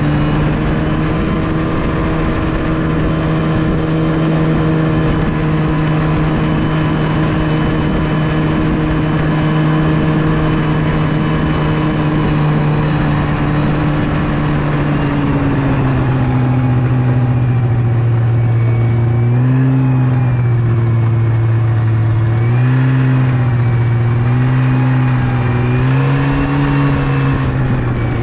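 Yamaha Venture snowmobile engine running steadily under way. After about fifteen seconds its pitch drops a little, then rises and falls several times as the engine speed changes.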